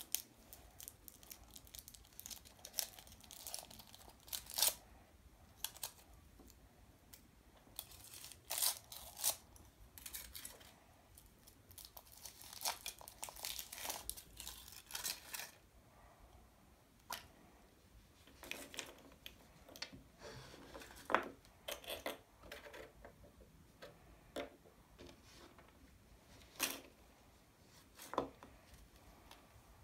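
Foil wrapper of a Chupa Chups chocolate surprise egg crinkling and tearing as it is peeled off by hand, in irregular short bursts of crackling that are busiest through the middle.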